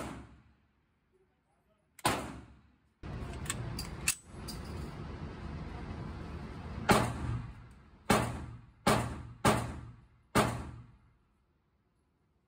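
Gunshots echoing in an indoor shooting range. There is one shot at the start, another about two seconds in, and a few fainter ones under a steady rushing noise between about three and seven seconds in. Then come five louder shots over about three and a half seconds, each trailing a short echo.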